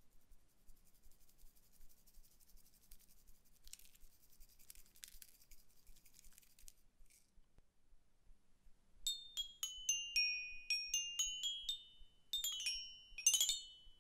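Soft, fine crackling as a hand presses into slime. About nine seconds in, a toy xylophone plays a quick run of bright ringing notes that step down in pitch, with a second, faster run near the end.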